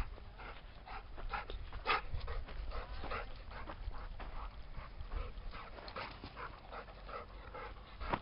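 A dog panting, out of breath from running and play.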